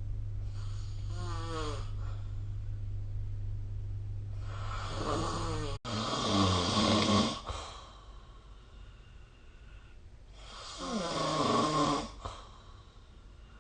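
A sleeping person snoring: three long, rattling snores about five seconds apart, each with a wavering pitch. A steady low hum runs under the first half and stops about halfway through.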